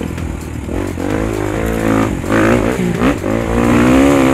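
Dirt bike engine being ridden under throttle, revving up about two seconds in, dropping briefly near three seconds, then revving high again near the end.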